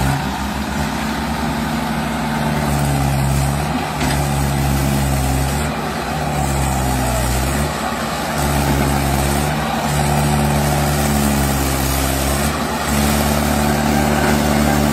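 Mahindra 475 DI tractor's four-cylinder diesel engine labouring under heavy load as it hauls a fully loaded trolley up out of a soft dirt pit. The revs rise and fall again and again as the driver works the throttle.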